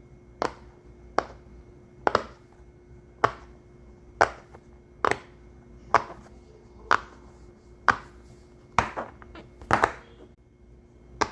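Sharp single pops of something being popped one at a time, about one a second and roughly a dozen in all, a couple of them doubled, over a faint steady hum.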